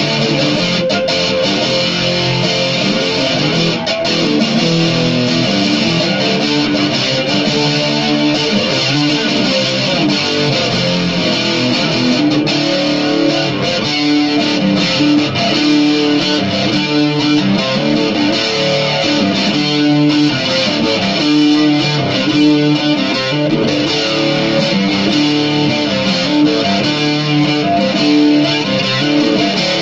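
Electric guitar played continuously, a dark rock riff at a steady loudness with no breaks.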